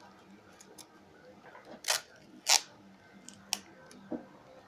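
Adhesive tape being worked by hand: two short rasping noises about half a second apart, then a sharp click and a fainter tap.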